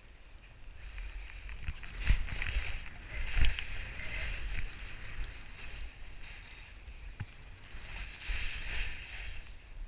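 Skis swishing through deep powder snow on a downhill run, the hiss swelling and fading with each turn, with low rumbling and two heavy thumps about two and three and a half seconds in.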